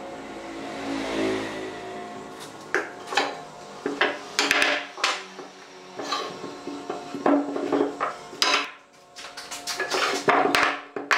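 Wooden furniture parts knocking and clattering on a wooden workbench as they are picked up, moved and set down: a string of sharp, irregular wooden knocks.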